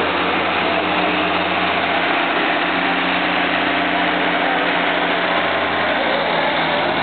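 Kenworth semi truck's diesel engine idling steadily at the start of a pull, its pitch holding even with no revving.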